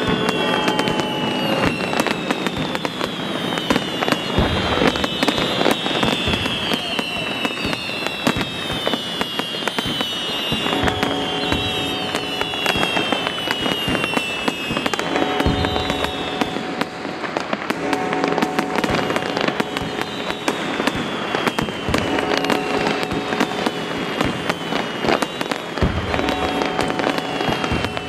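Fireworks going off in many overlapping bangs and crackles, mixed with a music track whose held chords come in about a third of the way through.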